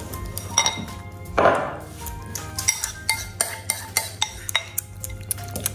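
Metal spoon clinking and scraping against a ceramic bowl as wet cat food is stirred and scooped out, in many short sharp taps.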